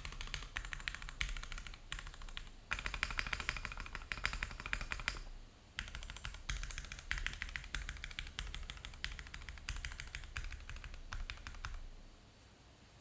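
Continuous typing on a MONOKEI Kei v2 65% aluminium keyboard with lubed Gateron Mink linear switches, an aluminium plate and no foam: rapid keystrokes, fastest a few seconds in, with a brief pause in the middle. The typing stops about a second before the end.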